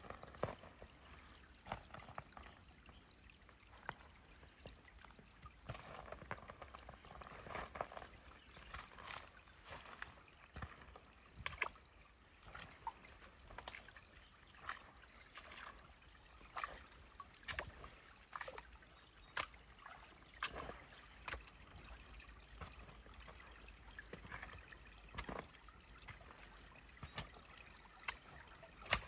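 Small woodland stream trickling, with irregular sharp drips and splashes standing out over a low, steady wash of water.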